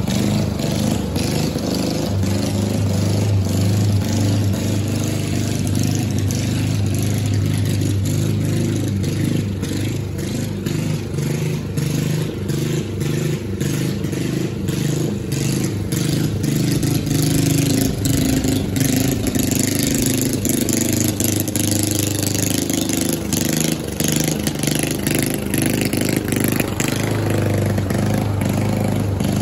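Gas walk-behind Toro lawn mower running steadily while cutting grass. It grows fainter in the middle as it moves away and louder again near the end as it comes back close.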